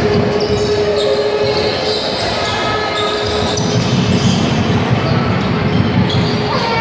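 Basketball being dribbled on an indoor court during live play, over steady crowd noise from the packed stands of an arena.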